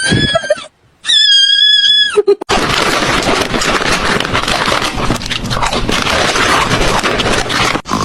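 Two high-pitched meows, the second held about a second. Then, from about two and a half seconds in, a long stretch of loud, harsh, jumbled noise that stops just before the end.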